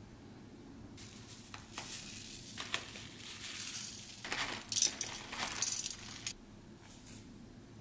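Crinkly seed packets rustling and shaking as chia seeds and cacao nibs are sprinkled onto a pancake on a plate. The rustling patter has a few sharp clicks, is loudest shortly before the end and stops about six seconds in.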